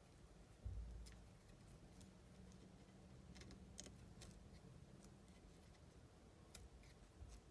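Near silence with faint, scattered small clicks from fly-tying tools being handled, and one soft low bump about a second in.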